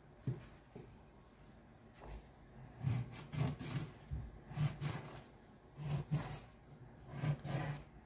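A kitchen knife sawing cuts into a whole fish's skin against a plastic cutting board, scoring it. It comes in four bouts of short strokes, starting about three seconds in.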